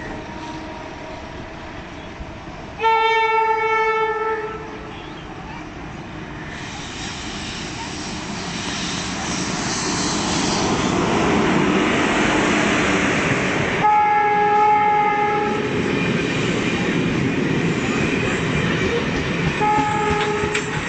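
Electric locomotive horn of the Howrah Duronto Express sounding three times, a long blast, a second about eleven seconds later and a short one near the end, as the train runs through the station at speed. Between the blasts the rushing noise of the train builds and the coaches clatter past.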